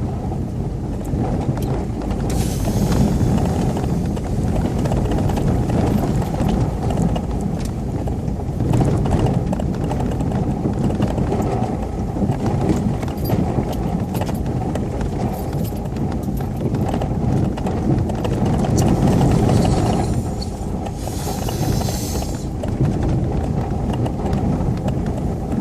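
UAZ Patriot off-roader driving over rough rally terrain: a steady low engine and drivetrain rumble with constant rattling and knocking, and two short bursts of hiss, a couple of seconds in and about twenty seconds in.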